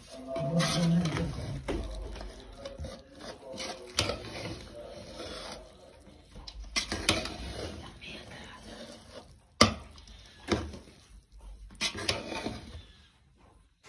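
Kitchen utensils knocking and scraping against cookware, with a few sharp knocks, the loudest about two thirds of the way in.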